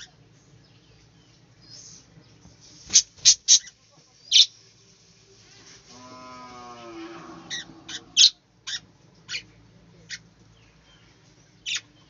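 Budgerigars in an aviary giving short, sharp, high chirps, singly and in quick clusters, about a dozen in all. Around the middle comes a lower, drawn-out call lasting about a second.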